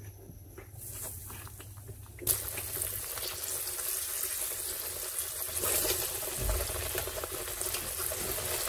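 Cooking oil sizzling in a hot frying pan: a steady hiss that starts suddenly about two seconds in.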